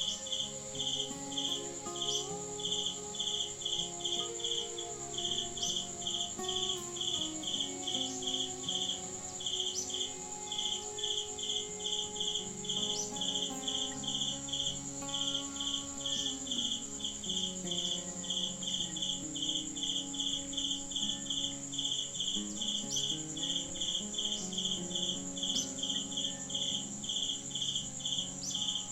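Insects chirping in an even, pulsing rhythm of about three chirps a second, with a steady high-pitched whine above it, over soft background music.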